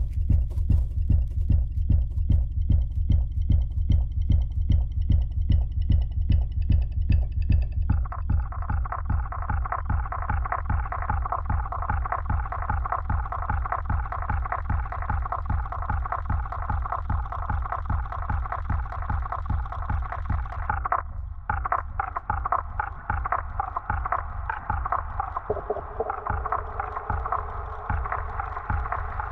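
Electronic soundtrack music built on a steady low pulse about three times a second. High thin tones sit over it for the first eight seconds, then give way to a dense midrange drone that drops out briefly a little past twenty seconds, and a held tone enters near the end.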